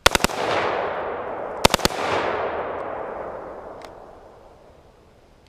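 Semi-automatic AR-15 rifle with a bump fire stock firing two quick bursts of three or four shots about a second and a half apart, each burst followed by a long rolling echo that dies away over a few seconds. The short bursts show the bump fire cycle stalling rather than running through a whole magazine.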